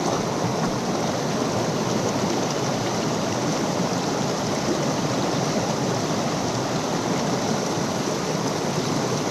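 Steady rush of a mountain stream's water flowing over rocks and small cascades, even and unbroken.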